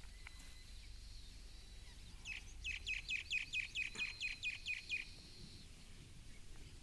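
A bird calling: a rapid run of about a dozen sharp, high notes, each dropping in pitch, at about five a second for some three seconds. A faint, steady high whine runs beneath it.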